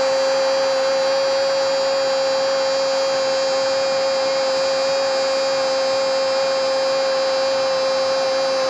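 A football commentator's long, unbroken shout of 'goal', held on a single steady note for the whole stretch in celebration of a goal just scored.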